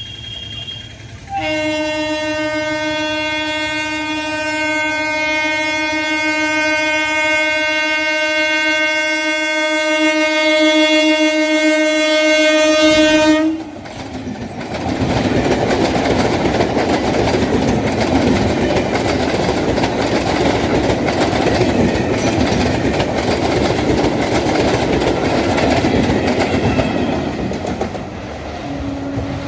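Howrah–Midnapore EMU local train's horn sounding one long, unbroken blast for about twelve seconds, slowly getting louder as it nears, then cutting off suddenly. The train then runs past, its wheels clattering on the rails for the rest of the time.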